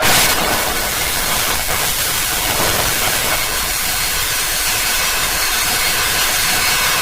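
A steady hiss of noise like static, starting abruptly and holding even throughout, with no tone or rhythm in it.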